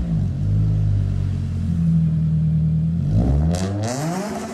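Honda CG 125 motorcycle's single-cylinder engine revving. The pitch falls at the start, holds steady for about three seconds, then dips and climbs again near the end.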